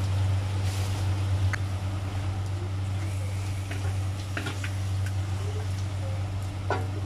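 A steady low mechanical hum, with a few light clicks and scrapes of a utensil stirring chicken pieces in a stainless steel pan.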